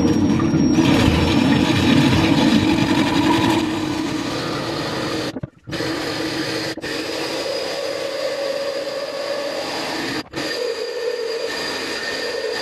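Hitachi cordless drill spinning a diamond hole saw, grinding steadily into a wet glass light shade; the bit abrades the glass rather than cutting it. The grinding cuts out briefly three times.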